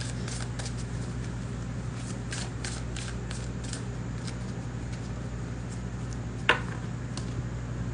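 Tarot deck being shuffled overhand by hand: a scattered run of light card clicks that thins out after about four seconds, with one sharper click about six and a half seconds in. A steady low hum lies underneath.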